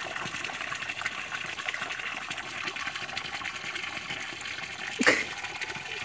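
A steady stream of water from a hose pouring and splashing into a shallow plastic kiddie pool where a mallard drake sits. A brief, louder sharp sound stands out about five seconds in.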